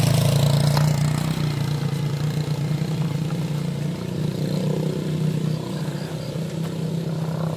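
A small motorcycle engine running as it passes close by and rides away. The steady hum is loudest at the start and eases off gradually.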